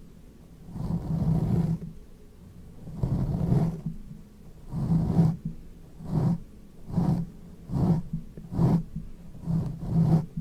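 Heavy, rhythmic breathing with a low voiced sound in each breath. The first breaths are long; from about the middle they come shorter and quicker, roughly one a second.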